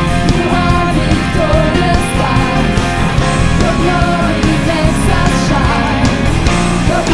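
Worship band playing a loud rock-style song, with singing over a full band and steady drum strikes.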